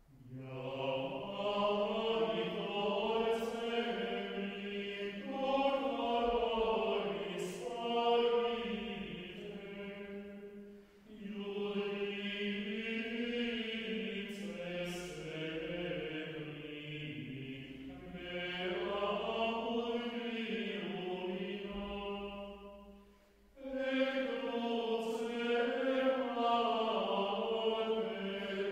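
Background choral chant: voices singing slow, sustained phrases with gently gliding pitch, pausing briefly twice, about eleven and twenty-three seconds in.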